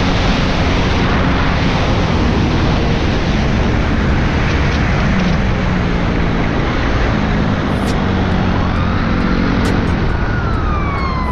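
Dirt bike engine running at road speed under heavy wind rush on a helmet-mounted microphone. Near the end a siren wail rises and falls.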